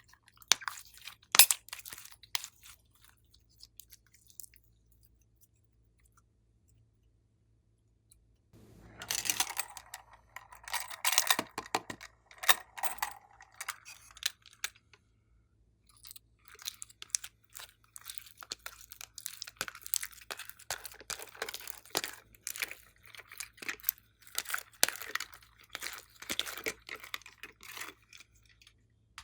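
Glossy slime being squished and kneaded by hand, giving dense runs of wet clicks and pops. A few clicks come near the start, then it goes quiet for several seconds, and the squishing picks up again about eight seconds in and runs on with only a short pause.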